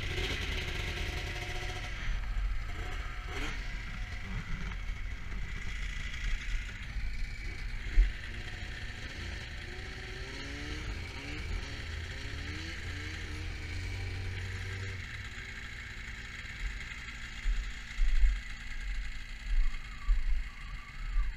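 Snowmobile running under load while towing a truck on a tow strap, with steady engine noise and mechanical clatter and creaking from the sled's track and body.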